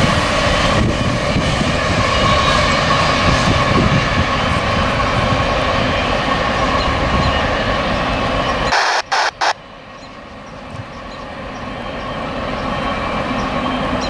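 Diesel-hauled CSX intermodal freight train running on the rails: a steady rumble with a thin squealing wheel tone on the curve. It cuts off abruptly about nine seconds in, then the rumble builds again as the locomotive draws nearer.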